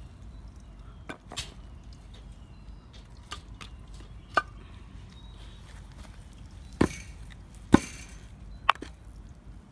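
About six sharp, irregular knocks against a wooden board and cinder block, the two loudest close together about three-quarters of the way through.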